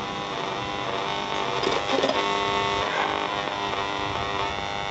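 National RX-5135 radio cassette recorder on its second shortwave band, hissing with several steady whistling tones as the dial is tuned between stations, with a brief burst of crackle about two seconds in.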